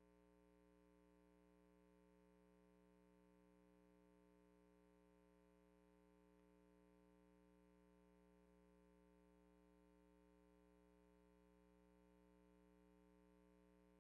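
Near silence with a faint, steady hum of several even tones.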